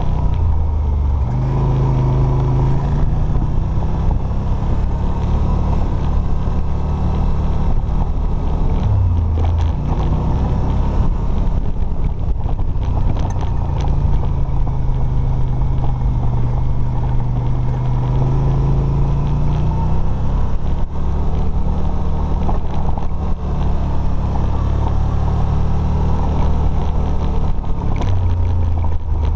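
Off-road vehicle engine running while driving over rough ground, a low drone whose pitch steps up and down several times with the throttle. A few short knocks from the bumpy ride are mixed in.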